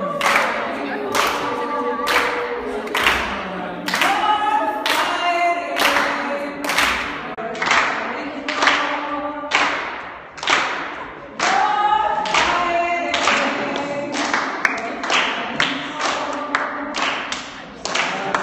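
A group of voices singing long held notes together, unaccompanied, over a beat of hand claps and thumps at about two a second.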